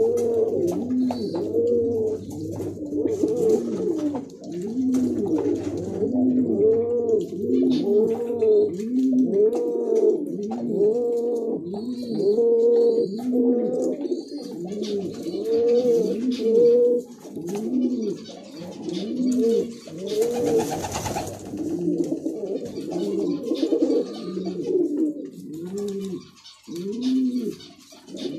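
Racing pigeon cooing: a steady run of repeated rising-and-falling coos, with a brief burst of noise about two-thirds of the way through.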